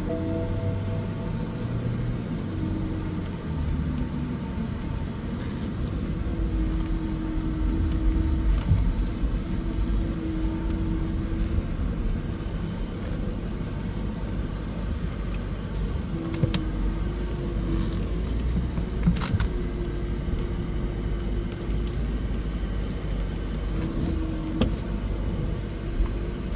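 BMW E70 X5 M's twin-turbo V8 and tyre noise while the SUV is driven: a steady low rumble with a faint engine tone that comes and goes. A few light clicks fall over its second half.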